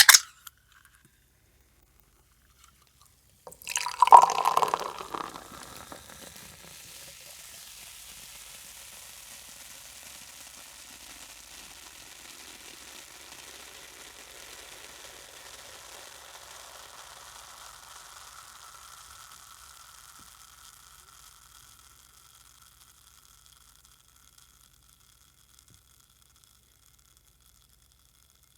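A sharp click of the soda can's tab at the very start. About three and a half seconds later the soda pours out with a splashing gush, then settles into a steady fizzing hiss of carbonation that slowly fades away over about fifteen seconds.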